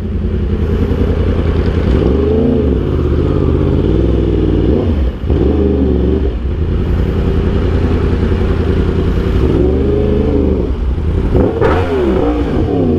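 Yamaha R1M's crossplane inline-four running through an Austin Racing GP1R exhaust, its engine note rising and falling as the throttle is blipped three times, then several quick blips near the end.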